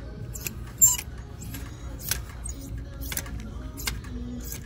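Clothes hangers clicking and scraping along a metal rack as shirts are pushed aside one by one. There is a sharp clack about a second in.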